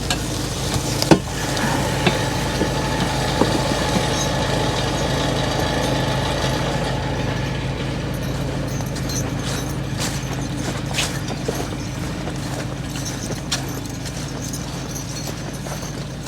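Skid steer's engine running steadily, with a few sharp knocks and clanks, one about a second in and several more between about ten and fourteen seconds.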